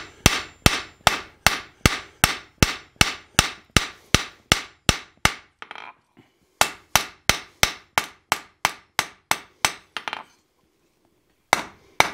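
Hand hammer striking a hot iron bar on the anvil, sharp ringing blows in even runs of about three a second. The blows pause briefly about halfway, stop about ten seconds in, and two more come near the end.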